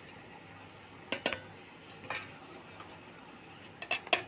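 Sliced tomatoes and green chillies tipped from a steel plate into a steel mixer-grinder jar, with a few light metal-on-metal clinks about a second and two seconds in. Near the end comes a quick run of clinks as fried onions are tipped in from a steel bowl.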